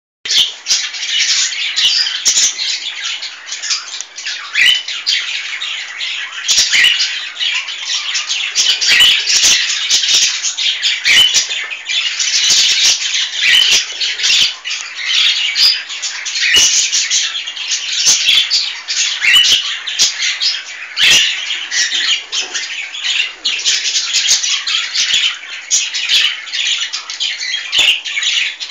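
Cockatiel chick calling almost without pause in high, harsh, rasping calls. Sharp clicks and knocks come in scattered through it.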